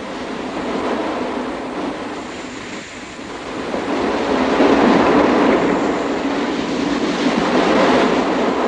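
Surf breaking on a sandy beach: a steady roar of waves that swells louder about four seconds in.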